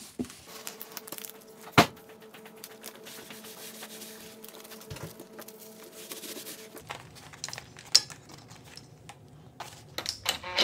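Hands rubbing and pressing an adhesive-backed heating pad and carpet pieces flat on a wooden workbench, with paper crinkling and rustling. Two sharp knocks stand out, one about two seconds in and one about eight seconds in.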